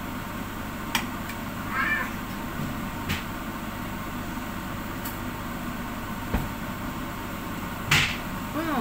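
A steady background hiss with a few light clicks and knocks, then a louder clack about eight seconds in as the glass lid is lifted off the stainless steel pot. Two short, wavering pitched cries come about two seconds in and just before the end.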